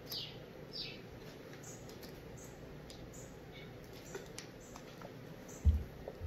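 Two faint high chirps falling in pitch, about a second apart near the start, over a low steady room hum; a dull low thump near the end is the loudest sound.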